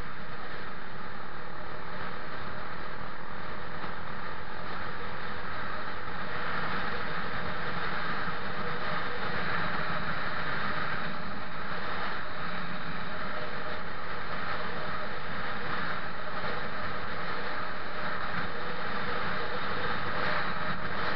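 Motorcycle riding at a steady cruise: engine running evenly under a constant rush of wind and road noise over the microphone.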